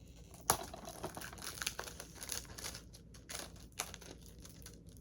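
Plastic crinkling and small irregular clicks of a DVD case being handled, a string of light crackles over several seconds.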